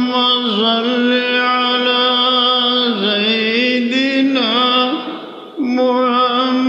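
A man chanting a slow devotional melody solo, holding long notes with short wavering turns, and breaking off for a breath about five seconds in.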